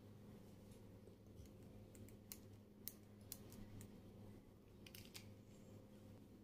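Faint, sharp clicks and taps of small plastic lip balm tubes and caps being handled, scattered through the middle with a couple more about five seconds in, over a low steady hum.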